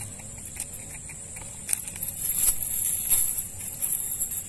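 Light rustling and scattered faint clicks as fish are picked out of a cast net with chain sinkers, over a steady high insect buzz that swells louder about halfway through.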